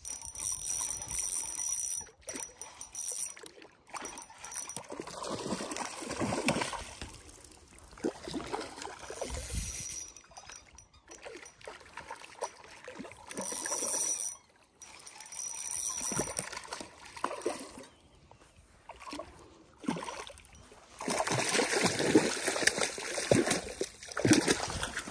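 Hooked trout splashing and thrashing at the water's surface during the fight, in irregular bursts, with a louder stretch of splashing near the end as it comes to the landing net.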